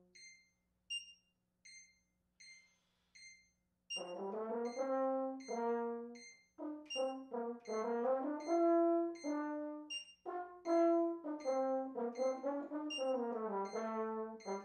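French horn playing an audition étude in separate notes against a metronome clicking at 80 beats per minute. For the first four seconds only the metronome ticks, then the horn comes in and plays through to the end.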